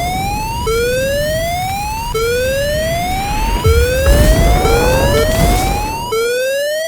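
Electronic emergency-alert alarm: a whooping tone that sweeps upward and snaps back about every second and a half, over the rumble and crackle of fire sound effects. The fire noise drops out about six seconds in while the alarm keeps going.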